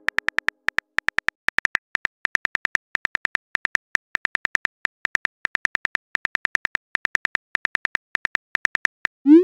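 Phone keyboard typing clicks from a texting app, a rapid uneven series of short ticks about five a second, as a message is typed out. Near the end a short rising swoop plays as the message is sent.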